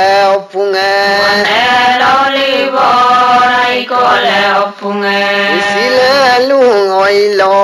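A man's voice chanting a traditional Adi ponung song in long held notes that waver and glide, with short breaths between phrases, over a steady low tone.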